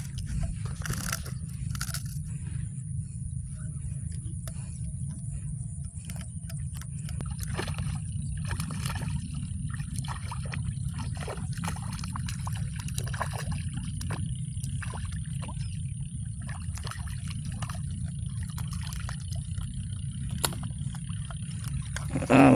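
Water sloshing and splashing with scattered scrapes and clicks as a hooked milkfish is played on rod and line, over a steady low rumble.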